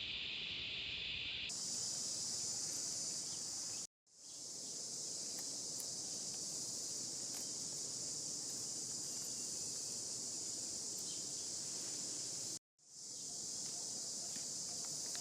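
Steady, high-pitched insect chorus, shifting to a higher pitch about a second and a half in, and cutting out to silence twice for a moment.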